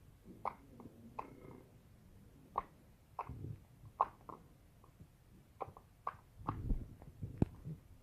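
Slime being squeezed and pulled by hand, giving irregular wet pops and clicks, with a couple of soft low squelches.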